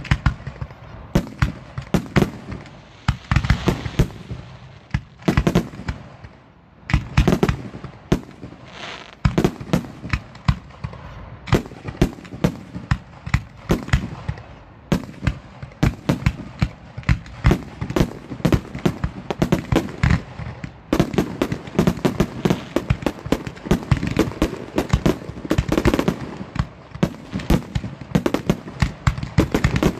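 Aerial fireworks shells launching from mortar tubes and bursting overhead, a rapid string of bangs that comes thicker and almost without pause from about two-thirds of the way through.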